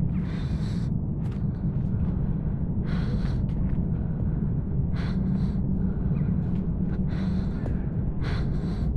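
A person's heavy gasping breaths, about one every two seconds, over a steady low rumble.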